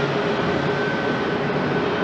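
Jet engines of a Boeing 767-300ER airliner running at taxi power: a steady rushing noise with a low hum and a thin, high, steady whine.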